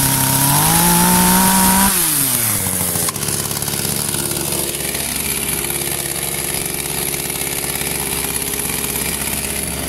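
Small two-stroke chainsaw revving up, holding high revs for about two seconds and then dropping back. After a sudden break about three seconds in, it runs at a steady idle.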